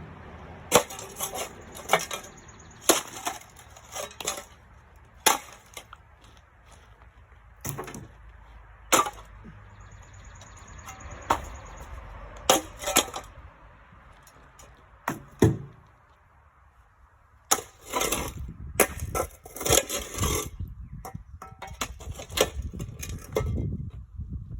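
Hand-tool blows striking and breaking up the brick and mortar of a stairway. The hits come irregularly, a second or two apart at first, then fast and close together in the last several seconds.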